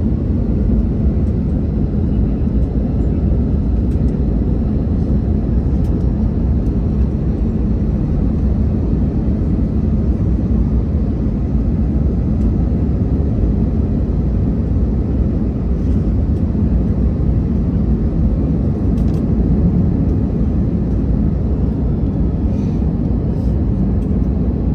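Cabin noise of an Airbus A320 with CFM56-5B engines during the final descent and landing: a steady, loud low rumble of engines and airflow.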